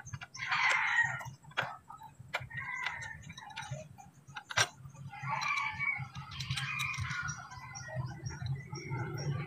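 Chickens clucking and a rooster crowing, with a few sharp clicks and a low steady hum underneath.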